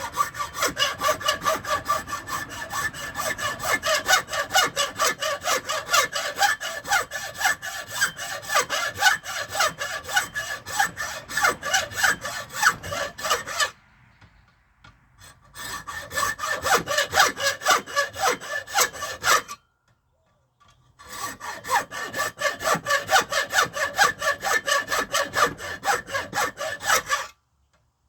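Hand saw cutting into tough caribou antler with rapid back-and-forth strokes, the blade ringing faintly. The sawing comes in three bouts, broken by two short pauses, and stops shortly before the end.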